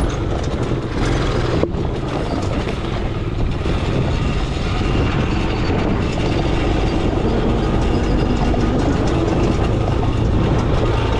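Four-wheeler ATV engine running under way as it is ridden along a dirt trail, with knocks and rattles throughout.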